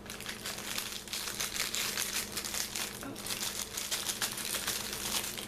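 Small plastic soap bag crinkling continuously as it is handled and opened by hand.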